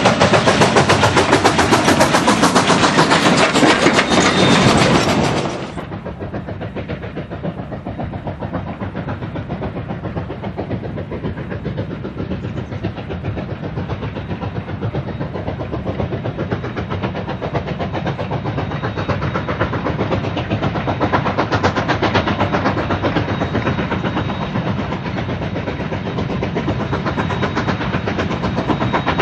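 Narrow-gauge K-36 steam locomotive running, a continuous fast rattling of the moving train. About six seconds in, the sound drops suddenly to a quieter, duller level and runs on steadily.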